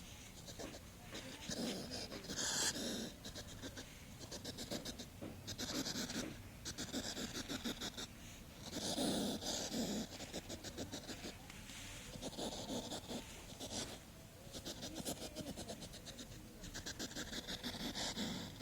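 A hedgehog snuffling, with bouts of rapid fluttering sniffing breaths every few seconds and quieter stretches between.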